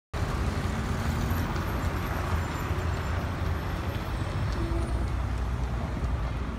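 Steady city street traffic noise, cars and buses going by, with a strong low rumble; it cuts in suddenly at the start.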